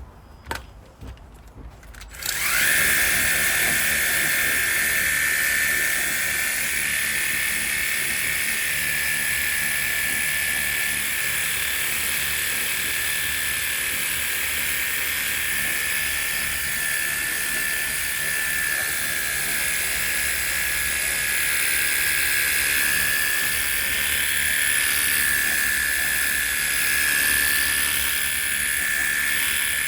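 Battery-powered portable jet wash switched on about two seconds in: its small pump motor gives a high, steady whine over the hiss of the water spray.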